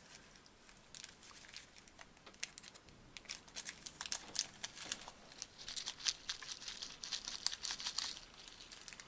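Small clear plastic bag crinkling as it is handled and opened, with a dense run of sharp crackles that gets busier near the end as tiny sequins are tipped out of it.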